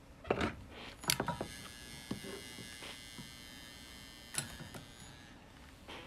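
Pistol-grip soldering gun picked up with a couple of knocks, then buzzing steadily for about three seconds with its trigger held, heating the center pin of a PL-259 connector to solder the coax center conductor; a click near the end.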